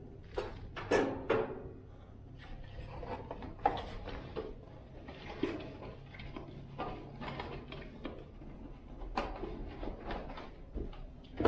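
Cardboard box and its packing being handled during unpacking: rustling of cardboard with scattered knocks and bumps as parts are lifted out, the sharpest about a second in.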